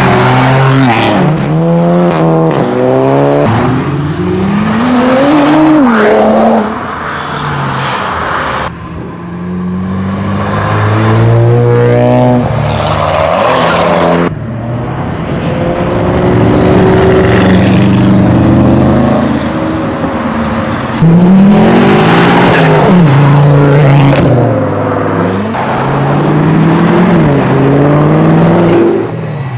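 A string of sports cars accelerating hard away one after another, engine pitch climbing through the revs and dropping back at each gear change. The level jumps suddenly several times where one car's run is cut to the next.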